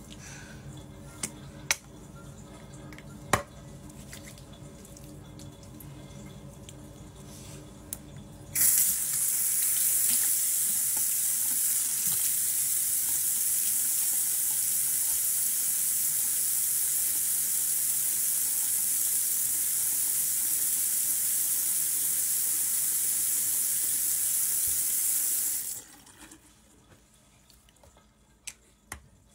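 Bathroom sink tap turned on and running as a loud steady hiss for about seventeen seconds, then shut off suddenly. Before it come a few sharp clicks of a plastic bottle and cap being handled.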